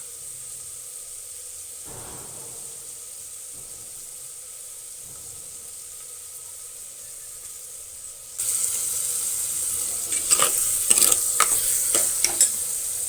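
Onions sautéing in hot oil, a steady sizzle that turns louder about eight seconds in, followed by several quick scrapes and knocks of a spoon stirring the pan.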